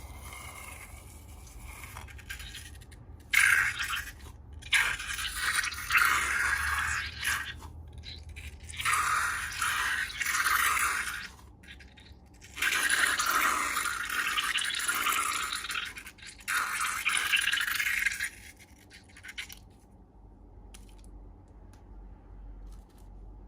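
Slime being squished and stirred by hand, in stop-start stretches of wet, scraping noise that fade away near the end.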